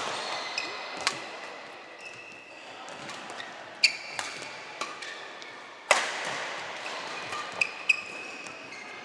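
Badminton rally: several sharp racket hits on the shuttlecock, the loudest about four and six seconds in, with short squeaks of shoes on the court mat between them, echoing in a large sports hall.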